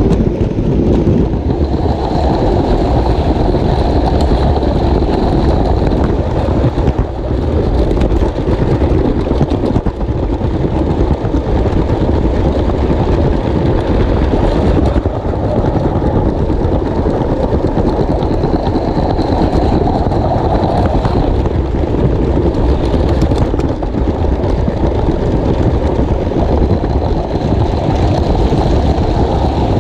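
LEGO train running on plastic track, its wheels and motor making a steady rumble and rattle, heard close up from a camera riding on the train, with a faint high whine throughout.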